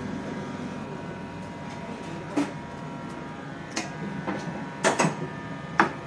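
Fast-food kitchen work during burger assembly: several sharp knocks and clicks, the loudest about five seconds in, over the steady hum of kitchen equipment.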